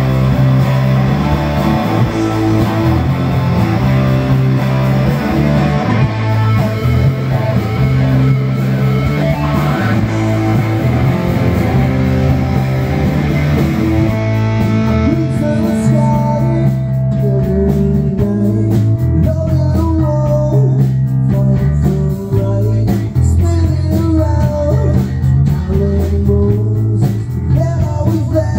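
Amateur rock band playing live: electric guitars and bass guitar in a bluesy rock groove. The high end thins out about halfway through, and a man's vocal comes in over the band.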